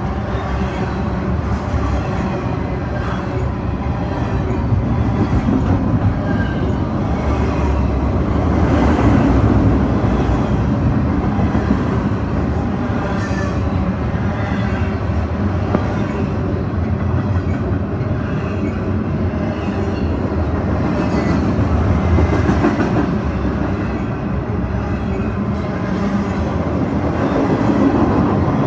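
Double-stack intermodal container well cars of a freight train rolling past. Steel wheels make a steady rumble and rattle on the rail, with recurring clicks.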